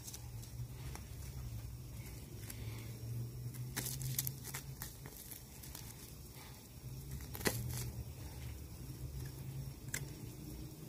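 A knife cutting the backstrap away along the spine of a skinned whitetail deer carcass: faint tearing of meat and membrane and a few sharp clicks, over a steady low hum.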